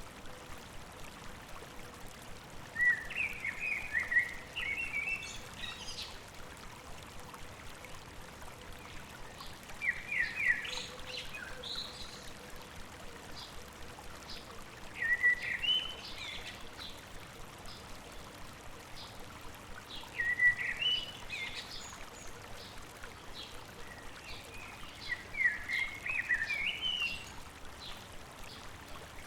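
A songbird repeating a short phrase of quick notes that rise in pitch, five times at intervals of about five seconds, over the steady rush of a babbling stream.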